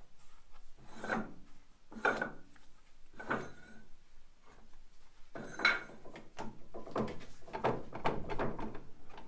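Metal scraping and rubbing as a heavy lathe chuck is worked free of the spindle onto a track carriage: a few separate rasping strokes, then a quicker run of them in the second half.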